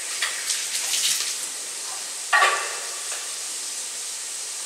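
Onion, garlic and bell pepper sautéing with dried beef in a pan, giving a steady sizzle. Light clicks and rustles come in the first second, and a short clatter about halfway through.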